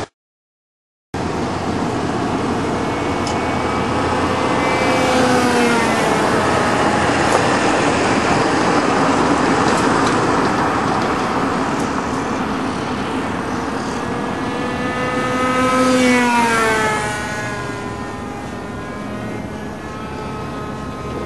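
Engine of a Thunder Tiger Champion-30L radio-controlled model airplane buzzing in flight. It makes two flybys in which the pitch swells and then drops, about five seconds in and again around sixteen seconds. The sound cuts out entirely for the first second.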